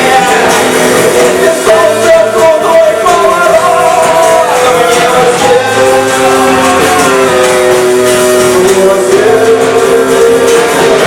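Live pop-rock band music, loud and continuous, with a melody of long held notes over a full band accompaniment.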